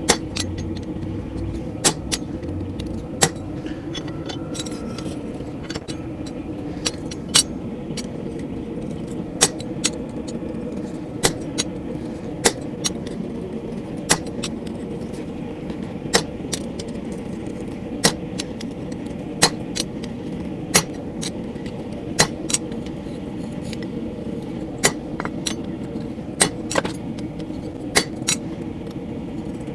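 Hammer blows on a chisel deepening the marks cut into a hot steel feather on the anvil: sharp, short metallic strikes about every second or so, irregularly spaced. A steady hum runs underneath.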